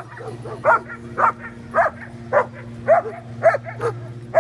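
A dog yipping over and over, short high-pitched yips about twice a second, over a steady low hum.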